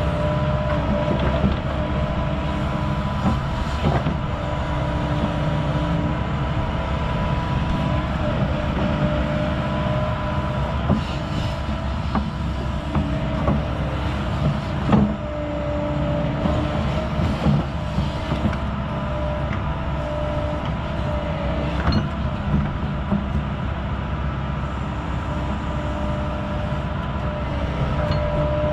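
Hyundai crawler excavator running close by under working load, a steady engine drone with a constant whine over it, while its bucket pushes and spreads soil to backfill around a drain-tile riser. Scattered short knocks and clunks come from the bucket and the dirt.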